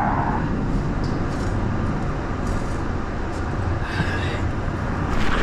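A steady low rumble with a few faint taps.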